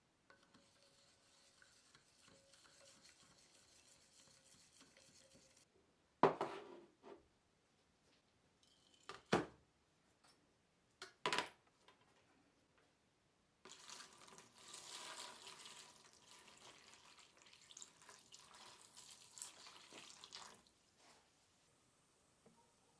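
Cleaning of a rusty steel bayonet scabbard: a faint hiss of running water at first, three sharp knocks of the metal being handled, then about seven seconds of brush scrubbing.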